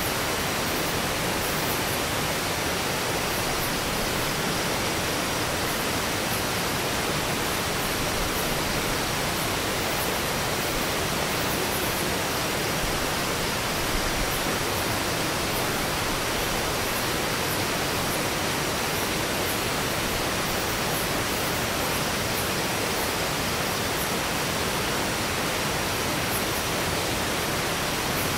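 River water rushing over rocks, a steady, even rush with no let-up.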